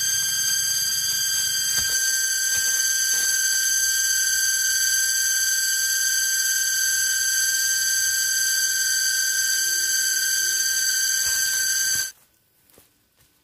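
Cicadas droning: a steady, loud, high-pitched whine of several layered tones that cuts off suddenly near the end, with a few faint knocks underneath.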